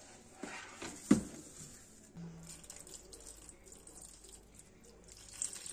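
Kitchen handling sounds: a sharp knock about a second in, then a run of light clicks and faint liquid noise.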